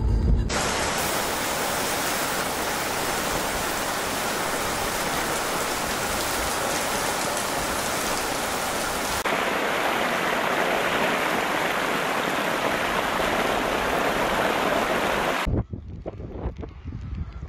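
Heavy rain pouring steadily, with runoff water rushing across a flooded road. Near the end it gives way to gusty wind buffeting the microphone.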